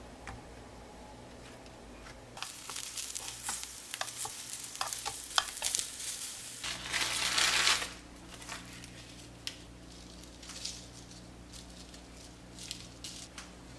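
Cooking in a frying pan: hissing and sizzling with sharp clicks and scrapes, loudest for about a second around the middle, then dying down to scattered faint ticks.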